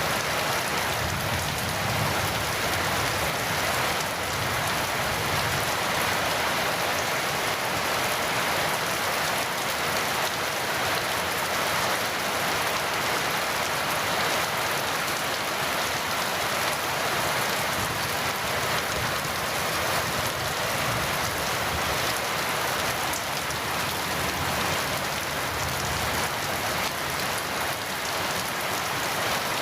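Heavy rain falling steadily in an even hiss, without thunder.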